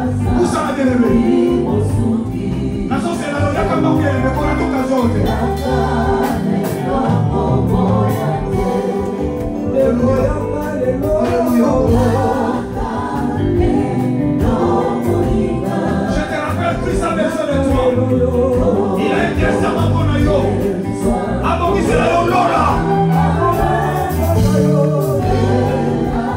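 Gospel worship music: a choir singing over steady backing music, loud and continuous.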